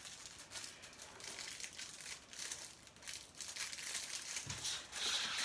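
Light rustling and crinkling with many small clicks: hands handling parts and materials at close range.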